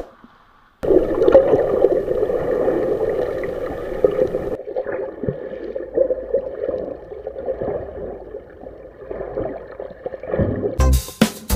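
Water sloshing and gurgling around a fishing boat, a steady churning noise that starts about a second in.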